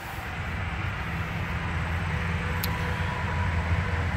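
Steady low hum and airy rush of a running pickup truck heard inside its cab, slowly getting a little louder, with one faint click about two and a half seconds in.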